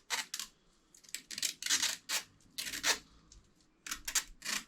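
Thin clear Scotch tape being pulled off its roll in a quick series of short, hissy ripping pulls, about nine in all, as it is wrapped once around a motorcycle heated grip.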